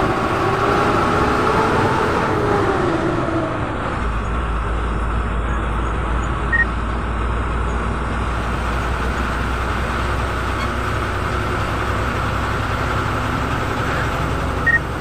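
Bus engine and road noise heard from inside the moving bus's cabin. The engine pitch rises and then falls over the first few seconds, after which it settles into a steady low drone. Two brief high beeps sound, a little past the middle and near the end.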